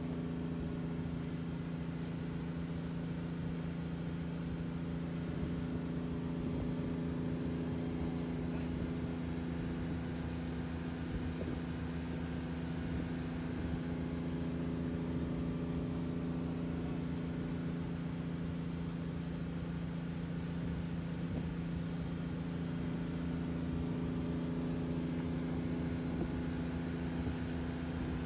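Wakeboard tow boat's engine running steadily at towing speed: a constant hum that holds one pitch throughout, over the hiss of the boat's wake.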